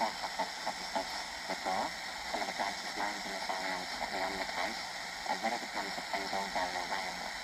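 Steady hiss of static on a weakly received FM radio station, with a man's voice coming through faintly and unintelligibly.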